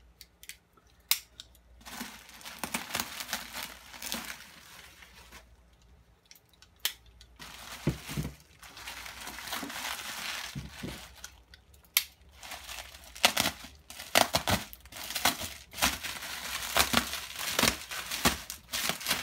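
Plastic bubble wrap crinkling and rustling as it is pulled apart and peeled off by hand, in several long stretches with short pauses between and occasional sharp clicks.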